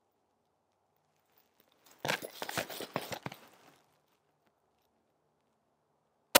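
About two seconds in, a second or so of crunching and clicking handling noise, then near the end a single sharp 9mm pistol shot from a Smith & Wesson M&P 2.0, the loudest sound here.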